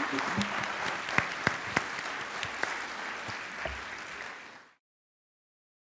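Audience applauding: a dense patter of many hands clapping that thins out and then cuts off abruptly to silence near the end.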